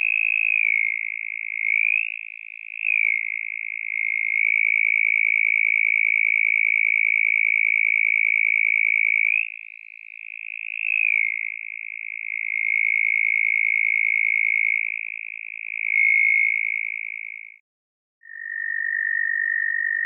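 Synthesized mole cricket chirp from Alchemy's additive engine: a continuous buzzing hum around 2 to 2.5 kHz, its pitch bending and its loudness swelling and dipping in places as the filter cutoff is moved. It stops about 17 seconds in, and after a short gap a lower, steadier synthesized cricket hum from Absynth 5 begins.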